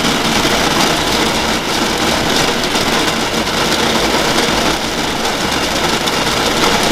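Kova Sylus electric coffee grinder running steadily, grinding coffee beans into its catch cup in a dosed run of about 30 g at cup setting 3.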